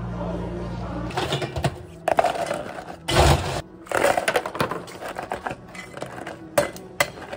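Ice cubes clattering and scraping in plastic cups and a metal shaker as drinks are made, in irregular bursts with a louder rush about three seconds in and sharp clicks near the end. A steady low hum stops about a second in.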